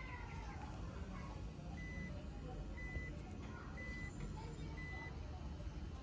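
APC UPS on-battery alarm: four short, high beeps about a second apart from its small internal beeper. A cat's meow trails off at the start.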